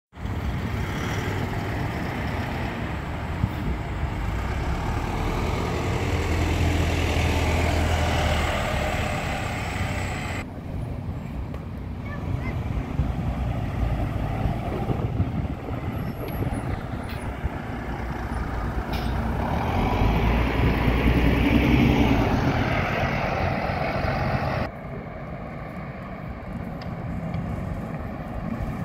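Diesel buses driving by, engines running, in separate clips that cut abruptly twice. A double-decker bus's passing is the loudest part, about two-thirds of the way through.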